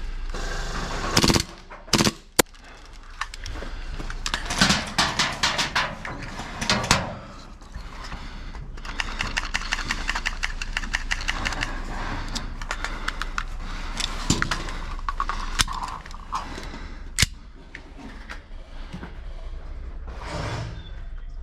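Gel ball blasters firing: single sharp shots, then quick full-auto strings of shots about five and ten seconds in, and more scattered shots later.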